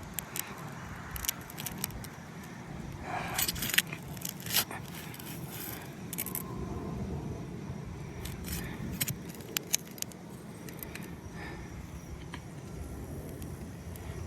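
Metal pry bar working between asphalt roof shingles, breaking their sealant bond: scattered light clicks and short scrapes, a cluster of them about three to five seconds in, over a steady low rumble.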